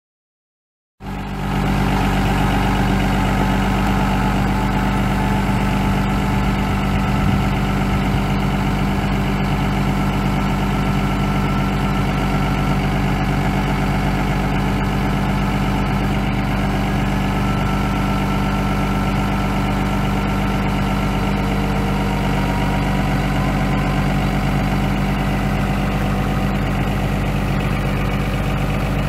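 Diesel engine of a 1995 Dodge Ram 3500, a 5.9-litre inline-six turbo diesel, idling steadily. The sound sets in abruptly about a second in.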